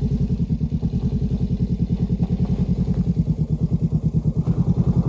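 Motorcycle engine idling with a steady, even pulse.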